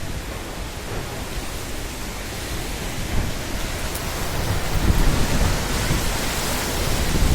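Heavy rain in a windy storm: a steady hiss of rain that grows louder a few seconds in, with low rumbling surges about five seconds in and again near the end.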